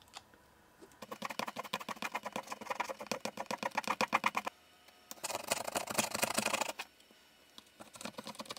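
A scraper worked quickly back and forth over leftover battery adhesive inside a MacBook Pro's aluminium case: three runs of rapid scraping strokes, starting about a second in, again past the middle, and once more near the end.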